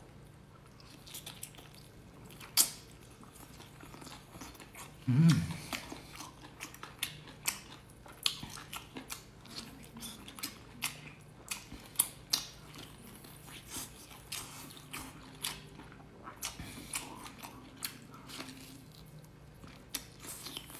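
A person eating seafood close to the microphone: chewing and biting, with many short sharp clicks and crunches, and a brief low hum about five seconds in.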